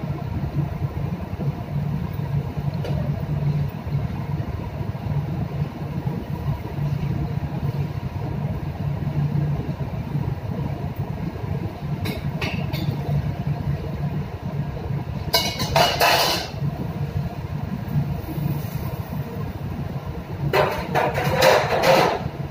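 Steady low drone of shipboard machinery in a ship's galley. A few faint clicks come a little past halfway, then two louder short bursts of clatter from work at the stove, the second near the end.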